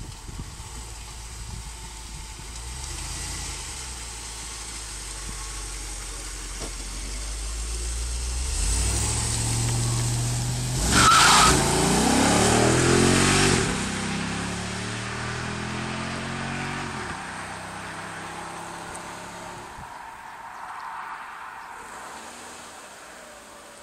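Jeep Grand Cherokee SRT8's 6.1-litre HEMI V8 accelerating away at full throttle, its revs climbing and dropping back with each upshift, loudest about eleven to thirteen seconds in, then fading into the distance.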